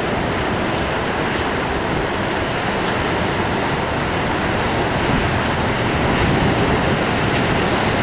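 Heavy storm surf breaking against the rocky shore: a steady, low-heavy wash of waves with no pauses, growing a little louder about five seconds in.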